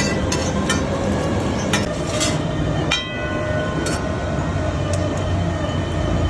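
A steady low rumble with a few sharp clinks scattered through it, like a metal spatula striking a griddle during cooking.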